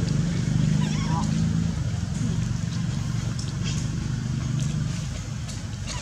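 A motor engine running steadily at a low hum, dropping away about five seconds in, with a few faint clicks and a brief faint squeak about a second in.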